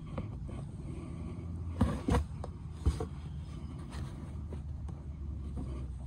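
Hands pulling a rubber fuel hose off an ATV carburetor's fitting: small handling clicks and knocks, the loudest three about two to three seconds in, over a steady low rumble.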